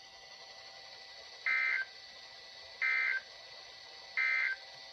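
Emergency Alert System end-of-message data bursts: three short, identical bursts of warbling digital tones about a second and a half apart, over a faint radio hiss. They signal the end of the broadcast alert.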